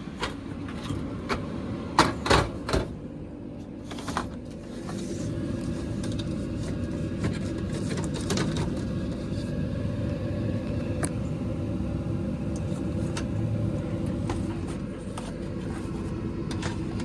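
A few sharp knocks, then a Carrier gas furnace's draft inducer motor starting and running with a steady hum: the first stage of the furnace's start-up sequence.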